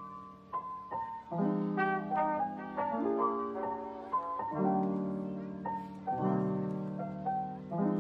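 Instrumental background music: held chords over a low note, changing about every second and a half, with shorter higher notes moving on top.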